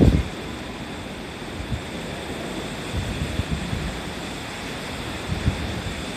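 Wind from an approaching typhoon rushing steadily, with irregular low gusts buffeting the microphone.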